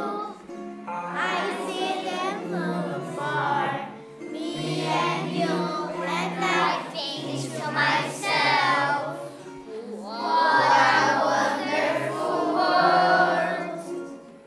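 A group of children singing a song together as a choir, in phrases of a few seconds with short breaks between them.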